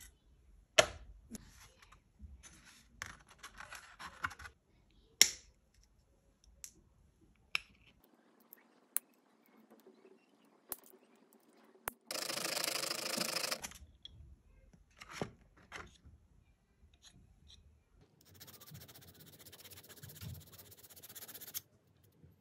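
Hands working on a 1:64 diecast toy car and its black plastic base: sharp clicks, two of them loud, with light scraping between. A dense rasping noise runs for about a second and a half midway, and a longer scratchy rasp comes near the end.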